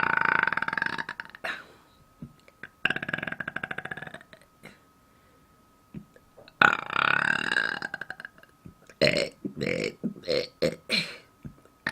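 A woman burping on command, loud and close: a long burp at the start, another a few seconds in, a longer one past the middle, then a quick string of about six short burps near the end.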